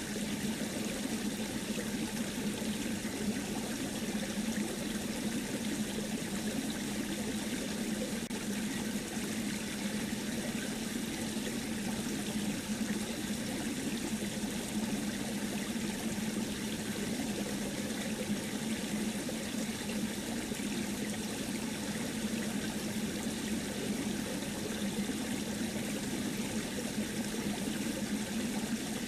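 Steady, even rushing noise with a constant low hum underneath.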